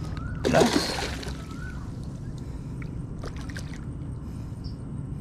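A hooked jelawat (sultan fish) thrashing at the water's surface: one loud splash about half a second in, lasting under a second, over a steady low rumble.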